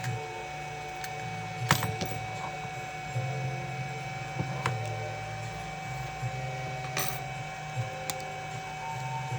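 Small metal repair tools clicking and tapping against a smartphone's parts during disassembly: several sharp clicks, the loudest about two seconds in, over a steady machine hum.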